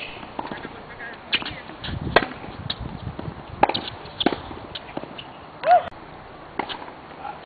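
Tennis balls struck by rackets and bouncing in a rally: sharp hits roughly every second, with a short squeal about two-thirds through.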